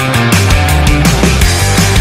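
Loud rock background music with heavy drums and distorted guitars.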